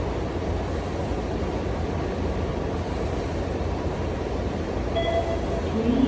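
Steady low rumbling noise, with a short electronic beep about five seconds in: the beep-test signal marking the end of a shuttle.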